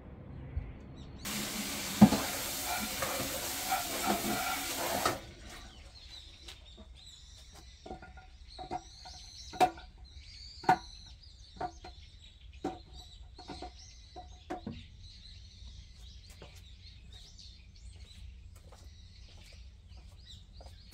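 Tap water runs into a stainless steel sink for about four seconds, with one sharp knock in it. Then comes a string of light knocks, about one a second, as yellow citrus fruits are set one by one into a bowl, while small birds chirp.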